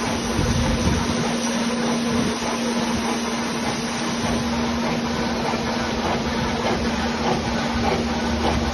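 Gear hobbing machine running steadily while it cuts teeth in a gear: a constant machine hum over the even hiss and chatter of the cut.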